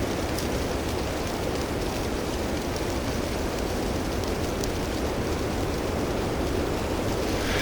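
Blizzard wind blowing steadily with a constant hiss, buffeting the microphone with a low rumble.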